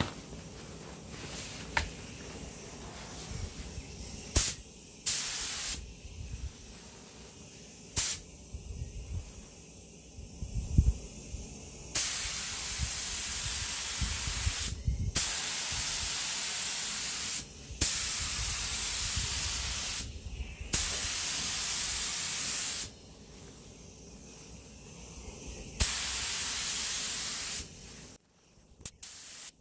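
Gravity-feed compressed-air spray gun spraying a second coat of clear coat, heard as bursts of hiss. A few short blips come in the first eight seconds. Then five long passes of two to three seconds each follow, each starting sharply as the trigger is pulled.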